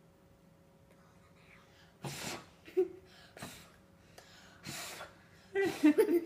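A girl blowing out birthday candles in several short puffs of breath about a second apart, starting about two seconds in.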